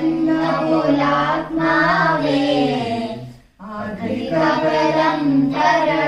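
A small group of adults and children singing a devotional hymn together in unison, in two long sung phrases with a brief break about three and a half seconds in.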